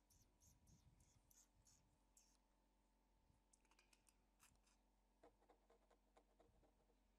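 Near silence with faint, soft clicks: puppies suckling as they nurse, ticking steadily at first, then irregularly later on.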